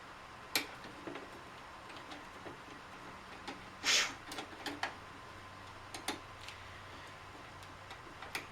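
Scattered small clicks and knocks of plastic parts and tools being handled while a Keurig coffee maker is taken apart, with one brief, louder scrape about four seconds in.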